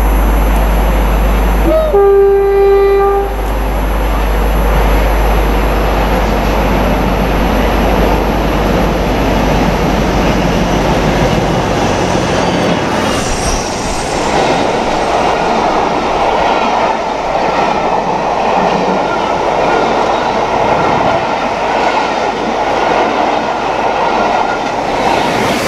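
Class 47 diesel locomotive sounds its horn once, about two seconds in, as it approaches: a single held note lasting over a second. The train then runs through the station, the locomotive and a long rake of coaches passing with a steady rush of engine and wheel noise that grows louder over the second half.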